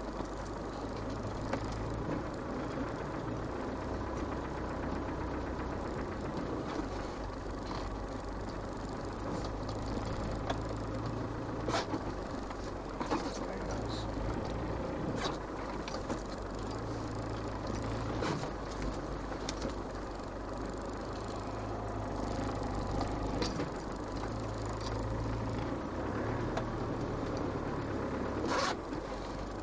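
Land Rover Defender 110's 300Tdi four-cylinder turbodiesel running steadily at low revs, heard from inside the cab, with scattered sharp knocks and rattles through it, the loudest about twelve seconds in and near the end.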